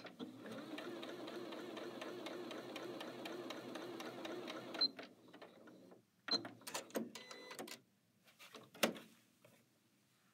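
Janome Skyline 6 computerized sewing machine stitching steadily at an even pace for about five seconds, then stopping with a short beep. A second beep and a brief mechanical whir follow, and a single knock comes near the end.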